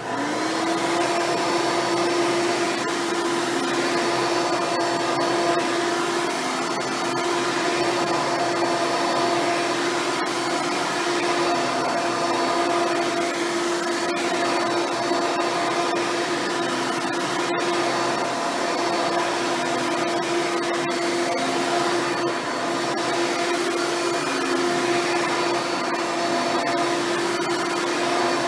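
Hoover Elite-style upright vacuum cleaner switched on and running steadily, its motor turning the brushroll on a newly installed belt. It starts suddenly and spins up to a steady whine within the first second.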